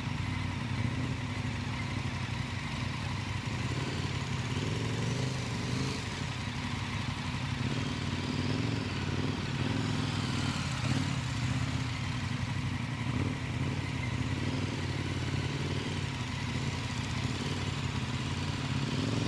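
KTM adventure motorcycles' V-twin engines running at low revs as the bikes ride slow, tight turning circles on gravel. The engine note is steady, with only slight rises and falls.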